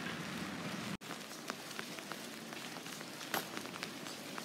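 Rain falling in a steady hiss, with scattered drops tapping close by; the sound drops out for an instant about a second in.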